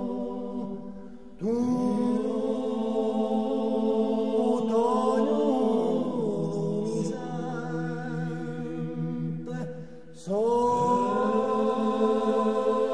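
Corsican male-voice polyphony sung a cappella, a slow lament in held chords. A phrase dies away and a new one enters about a second and a half in, the voices sliding up into the chord. The same happens again about ten seconds in.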